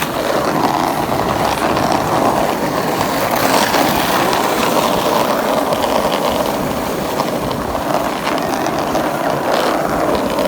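Skateboard wheels rolling on pavement: a steady, loud rolling rumble with a few faint clicks.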